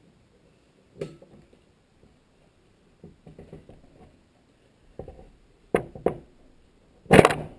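Knocks and clinks of a steel crankshaft, connecting rod and wrench being handled on a wooden tabletop: about six separate knocks, the loudest near the end.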